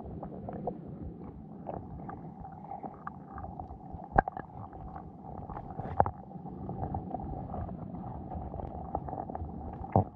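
Muffled underwater noise picked up by a GoPro in its waterproof housing on a sandy lakebed: a steady low rumble with a faint hum, broken by sharp knocks about four seconds in, about six seconds in and near the end.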